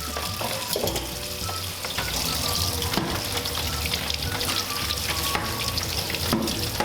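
Liquid pouring and splashing onto a computer keyboard, a steady hiss of running liquid, with background music.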